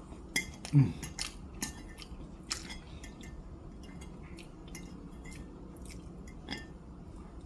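Close-up chewing and biting of fried chicken wings: wet mouth clicks and crunches scattered through, with a short low vocal sound that falls in pitch about a second in.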